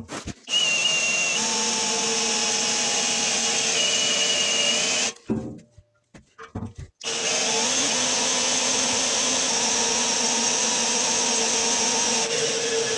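Handheld power tool running at steady speed in two long runs, stopping for about two seconds around five seconds in, with a few short knocks in the pause.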